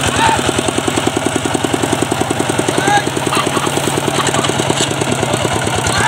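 Single-cylinder diesel engine of a two-wheel walking tractor running steadily, a rapid, even chug, while it hauls a trailer loaded with rice sheaves. A few short calls are heard faintly over it.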